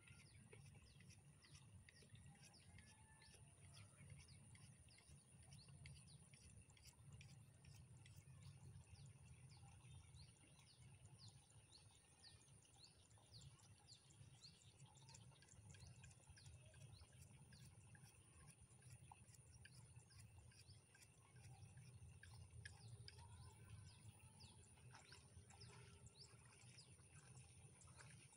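Faint rural field ambience: small birds chirping in many quick, short, falling notes, over a steady high whine and a low rumble.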